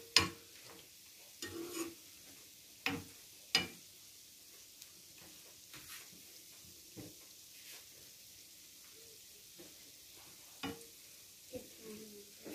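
Donuts frying gently in oil on a low flame, a faint steady sizzle, with a metal slotted spoon clinking and scraping against the pan now and then, most often in the first four seconds and again near the end.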